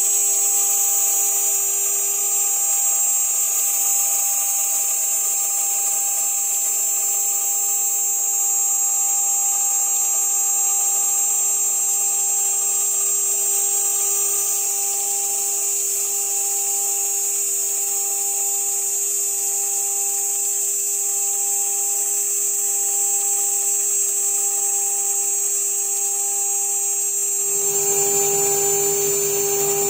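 CNC router spindle spinning a 3 mm carbide endmill at 12,000 RPM, milling half-inch polycarbonate: a steady high whine with a hiss of cutting. About two seconds before the end the sound shifts and a lower hum comes in.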